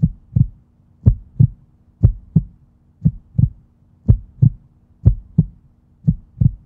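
Heartbeat-style double thumps, a low 'lub-dub' pair about once a second, repeating steadily over a faint low hum.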